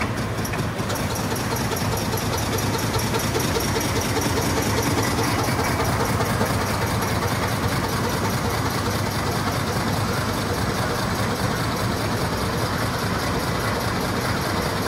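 Gür-İş MS-500 P single-lane T-shirt bag making machine running: a steady mechanical clatter with a fast, even beat of about five strokes a second.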